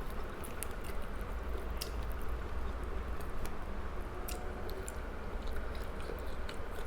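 Close-up chewing and mouth sounds of a person eating, with irregular small wet clicks, over a steady low hum.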